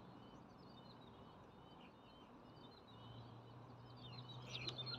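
Faint small-bird chirps and twitters over quiet outdoor ambience, a little busier near the end. A faint steady low hum comes in about three seconds in.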